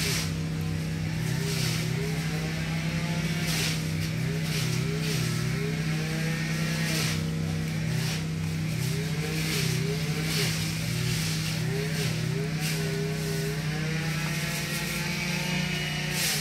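Catfish splashing and thrashing at the water surface in a plastic barrel, in irregular short splashes. Under them runs a continuous low hum with a wavering higher tone.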